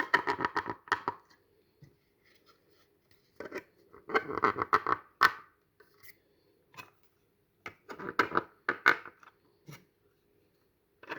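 3D-printed plastic horn parts clicking and scraping as they are pushed and clipped into the horn's manifold, in three spells of rapid clicks.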